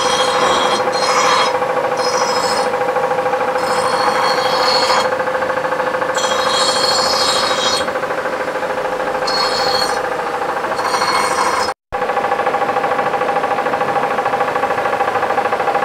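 Compressed-air paint spray gun hissing in repeated bursts of about half a second to two seconds as the trigger is pulled and released, over a steady machine hum. The hissing stops after a short break near the end, leaving only the hum.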